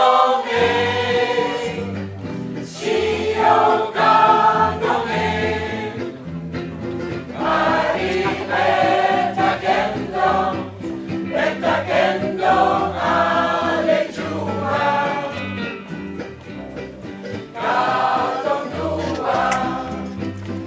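Choir singing a song in phrases over a steady accompaniment from a small band.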